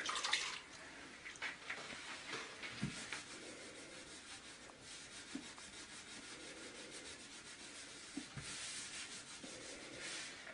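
Faint rubbing and scrubbing of a rubber-gloved hand over a wet floor, working at a scuff mark, with a couple of soft knocks.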